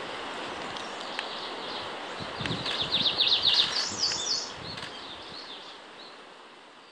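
Izu leaf warbler singing: a loud, rapid run of about ten quick high notes a few seconds in, followed by a couple of still higher notes, over a steady outdoor hiss.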